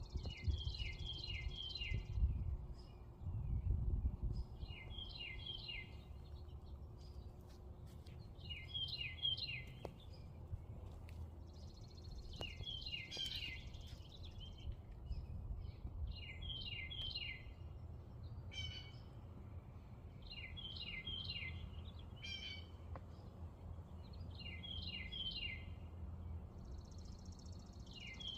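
A songbird singing the same short phrase over and over, about every three to four seconds: a quick run of four or five descending whistled notes, some phrases opening with a high buzzy trill. A steady low rumble lies under the song.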